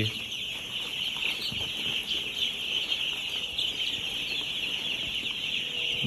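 Hundreds of four-day-old broiler chicks peeping together, a steady dense chorus of high chirps.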